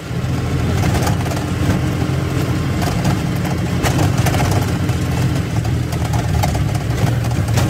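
Auto-rickshaw engine running steadily as it drives along, heard from the open passenger cabin with road noise.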